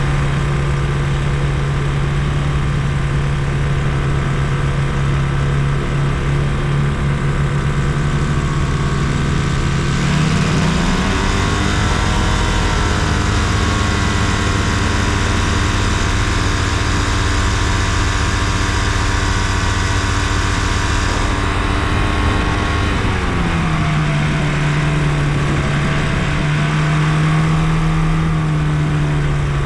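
Challenger II ultralight's engine running at low power, then throttled up about a third of the way through and held at higher power for around eleven seconds before being throttled back down. The engine runs on without faltering.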